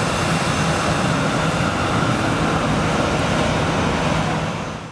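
Boeing 737-800's CFM56-7B turbofan engines at climb power as the jet departs, a steady jet roar that fades away near the end.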